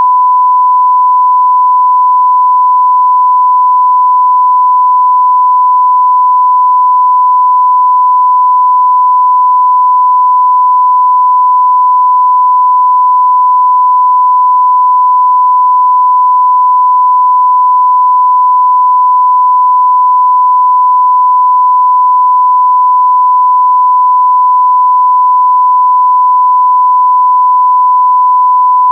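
Television test tone: a loud, steady 1 kHz sine tone held unbroken at one pitch, the reference tone that accompanies a test card or colour bars.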